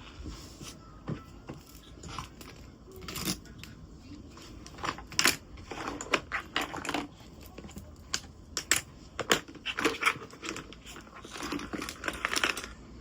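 Scattered sharp clicks and light knocks with some rustling, like objects being handled in a small room, busiest in the second half.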